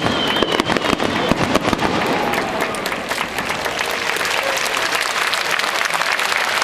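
Fireworks bangs and crackling, giving way about two seconds in to a crowd's steady applause as the display ends.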